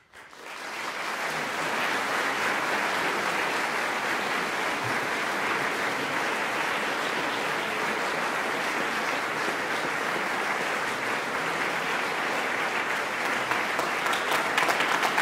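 Audience applause that breaks out suddenly, builds over about a second and a half, then carries on steadily.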